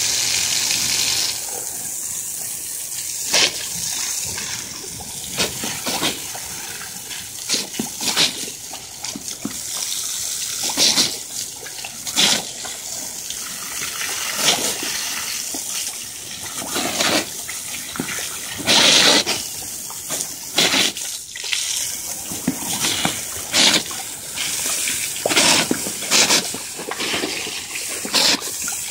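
Garden hose spray hissing steadily onto a concrete patio, broken every second or two by short, loud splashes as dogs bite and snap at the stream.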